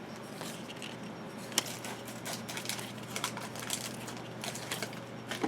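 Foil trading card pack being opened and the cards handled: a run of light crackles and ticks, the sharpest about one and a half seconds in, over a faint steady hum.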